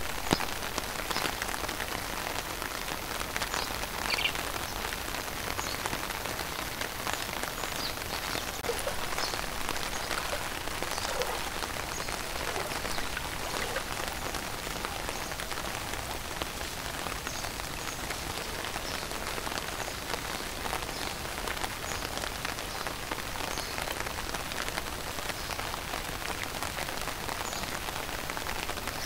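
Steady rain pattering on standing floodwater, with a dense scatter of small drop ticks.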